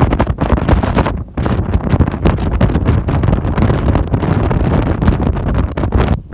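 Wind buffeting the microphone on a cruise boat: a loud, uneven, low rumble that gusts irregularly, with a brief lull about a second in.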